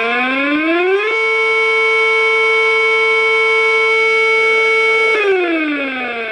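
A siren wailing: its pitch rises for about a second, holds steady for about four seconds, then falls away near the end.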